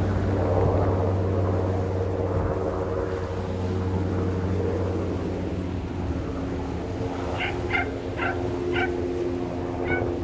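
A steady engine drone with a slight shift in pitch about halfway through. From about seven seconds in, a bird calls in a run of short, sharp notes about half a second apart, with a few more near the end.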